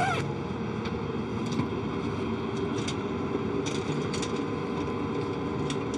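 Steady hum of the International Space Station's cabin fans and equipment, a mix of several constant tones over an even hiss, with a few faint clicks.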